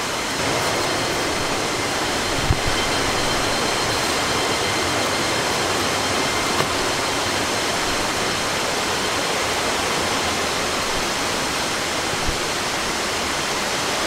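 Steady rush of a waterfall's falling water, an even hiss with no change, broken only by a few faint knocks.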